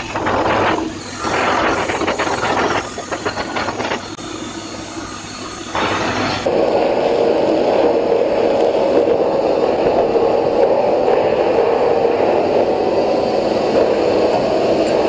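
Stick (SMAW) welding arc crackling and hissing, with short breaks in the first few seconds; about six seconds in it turns steadier and duller, with less high-pitched sizzle.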